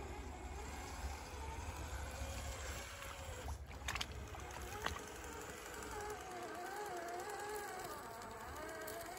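Axial SCX10 III 1/10-scale RC crawler's electric motor whining, its pitch rising and falling with the throttle as it crawls the trail. A few sharp clicks come about four to five seconds in.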